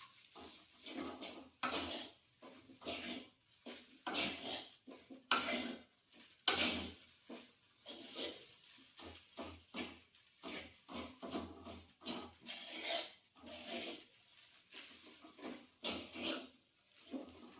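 A spatula scraping and stirring fried rice around a frying pan, in irregular strokes about one or two a second, as the rice and seasoning are mixed until even.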